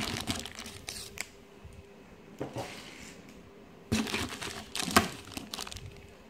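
Plastic packaging crinkling and rustling in bursts as bagged parts are lifted out of bubble wrap in a cardboard box. The loudest rustle comes about four to five seconds in.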